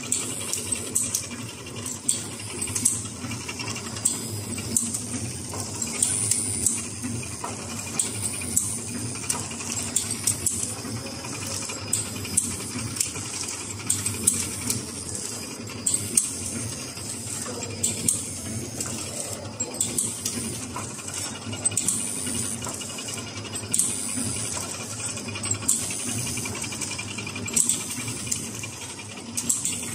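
Vertical popsicle packing machines running, a steady mechanical clatter with repeated sharp clicks and ticks from the sealing and cutting strokes.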